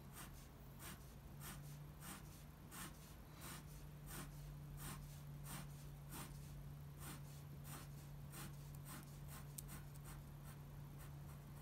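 Faint, regular scratching of a Faber-Castell fineliner pen on paper, about one and a half strokes a second, as it lays down rows of parallel diagonal hatching lines.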